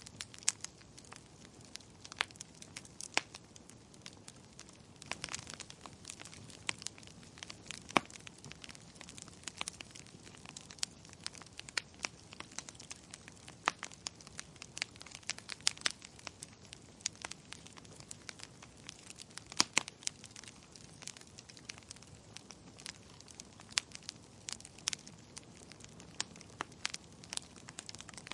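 Burning logs crackling, with irregular sharp pops, a few of them much louder than the rest, over a faint steady hiss.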